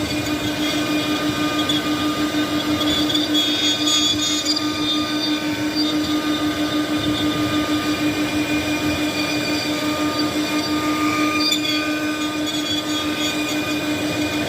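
CNC machine running with a steady low hum and several high, steady whining tones over a noisy cutting or machine sound.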